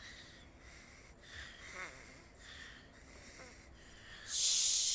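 Soft sleeping breaths and little snores from the baby Tiddlytubbies, repeating gently. About four seconds in comes a loud, breathy "shhh" as the Teletubbies hush.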